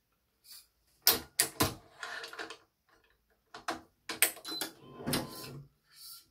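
Badminton racket being strung on a stringing machine: a run of sharp clicks and snaps with short scraping stretches as the BG80 string is pulled and the machine is worked.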